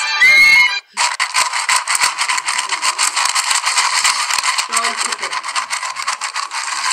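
A dog eating dry kibble from a metal bowl: rapid, crackly crunching with kibble rattling against the bowl, starting about a second in after a brief loud burst.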